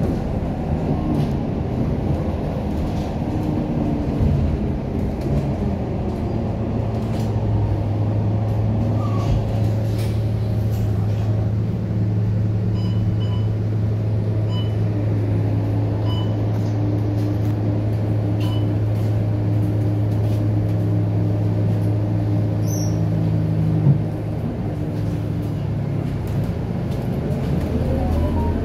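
Scania K230UB bus's diesel engine heard from inside the bus, running with a steady low drone while the bus stands at a stop. There is a single sharp knock near the end, and then the engine note rises as the bus pulls away.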